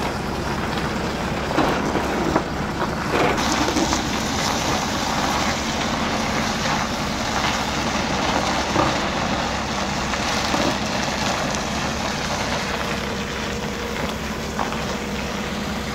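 Steady vehicle noise: a constant low rumble under an even hiss, with a few faint knocks.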